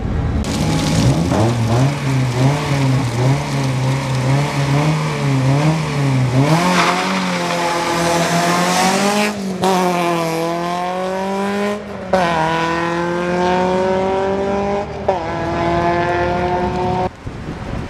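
Peugeot 205 Mi16 competition car's 16-valve four-cylinder engine held at high revs on the start line, the revs wavering up and down. About six seconds in it launches with a burst of tyre noise and accelerates hard, the engine note rising again and again through the gears with short breaks between.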